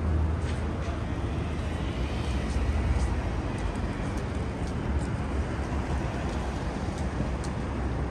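City street traffic: a steady low rumble of passing vehicles, with a few faint clicks.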